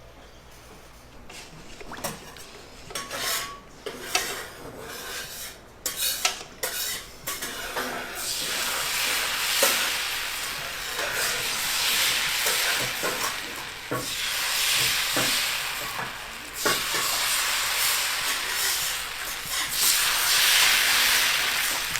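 Utensils clinking and scraping on cookware, then food sizzling in hot oil from about eight seconds in, the sizzle rising and falling as it is stirred.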